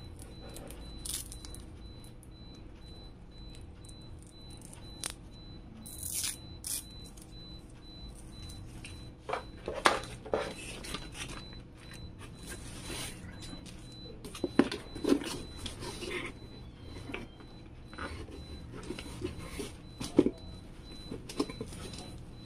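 Hands unpacking a PC power supply: cardboard and packaging rustle and scrape, with scattered sharp clicks and knocks as cables are pulled out and handled.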